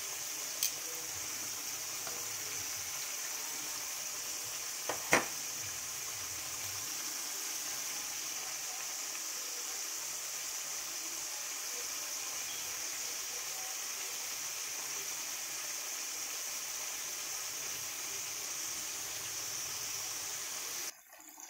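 Marinated pork pieces deep-frying in hot oil: a steady sizzling hiss, with a sharp crack about five seconds in and a fainter click at the start. The sizzle cuts off just before the end.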